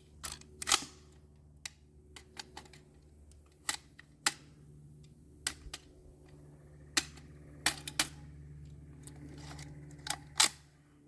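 Irregular sharp metallic clicks and clacks, some in quick pairs and threes, from an Auto-Ordnance Thompson M1 submachine gun being handled. It is the kind of noise made by working the bolt and magazine on a gun that keeps jamming.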